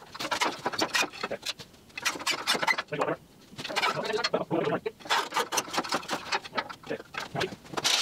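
Irregular metal clanks, rattles and scrapes from a Hudson portable sawmill's steel frame and track being worked loose and shifted by hand, with brief lulls about two and three seconds in.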